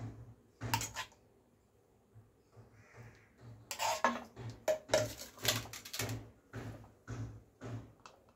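Metal serving spoon scraping and knocking against a pan and a plate while thick, sticky kheer is dished out. A run of sharp knocks and scrapes, a couple near the start, many packed together in the middle, fewer toward the end.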